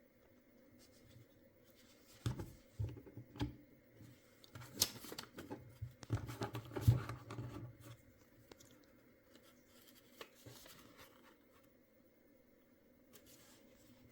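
Hands handling a small plastic toy and its packaging: a run of clicks, taps and scratchy rustles, busiest a couple of seconds in and dying away in the second half.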